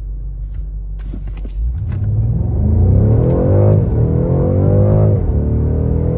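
BMW engine accelerating at full throttle from a standstill in Sport Plus, heard from inside the cabin. It idles low for a second and a half, then the revs climb, drop at an upshift from first to second, climb again, drop at the shift into third, and start rising again.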